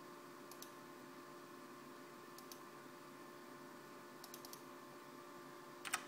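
Faint clicks from a computer mouse and keyboard: a pair about half a second in, another pair about two and a half seconds in, four quick clicks a little after four seconds, and a louder burst of clicks near the end, over a faint steady hum.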